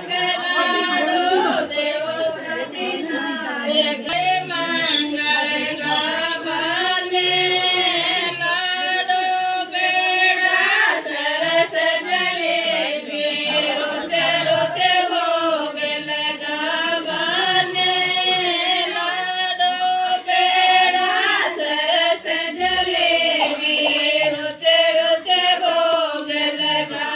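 Group of women singing a folk song together in a chanting style, with long held, wavering notes.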